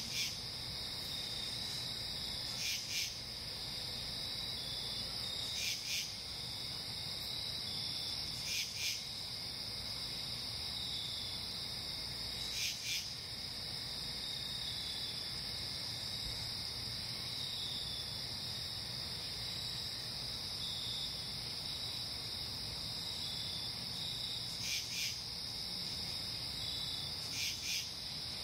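Night-time chorus of crickets and other insects: a steady high-pitched trill with a fainter pulsing call beneath it, and short double rasps every few seconds.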